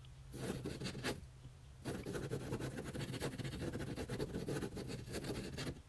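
Pen scribbling on a paper notepad: a dry, continuous scratching of the tip over the paper. It comes in two stretches, with a short pause a little after the first second.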